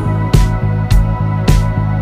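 Instrumental passage of a pop ballad cover, with no singing: held chords over a steady beat, a drum hit landing about every half second.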